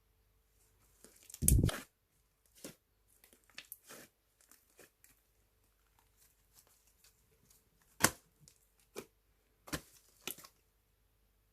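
Slime being worked by hand: irregular squishes and crackles, the loudest a heavier squelch about a second and a half in.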